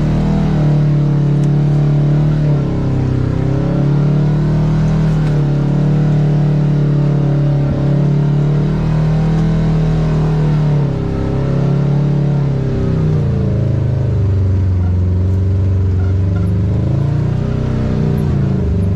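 Side-by-side UTV engine running under way, its pitch rising and falling with the throttle. It drops lower for a couple of seconds past the middle, then climbs again near the end.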